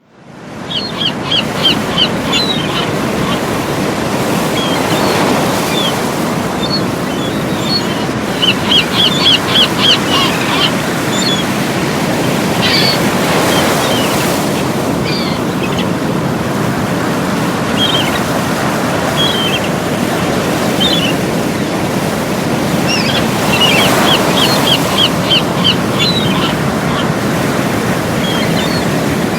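Seashore ambience fading in: surf washing steadily on the shore, with birds calling in quick runs of short, high notes near the start, about a third of the way in and again near the end, and scattered single calls between.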